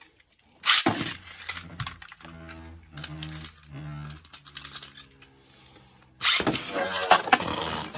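A Beyblade Burst top is ripped off a string launcher with a sharp rasp, then spins on the plastic stadium floor with a steady low hum that fades. About six seconds in, the string launcher's cord is pulled and rewound with a loud rattling.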